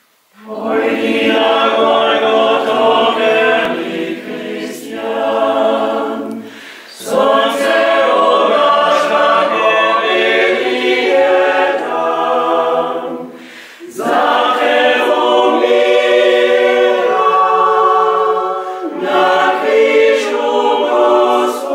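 Mixed choir of women's and men's voices singing a hymn a cappella, in four long phrases with short breaks between them.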